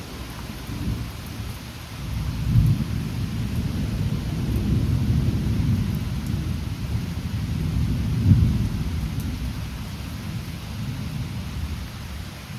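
Thunderstorm: a low rumble that swells about two seconds in and peaks again near eight seconds, over a steady hiss of rain.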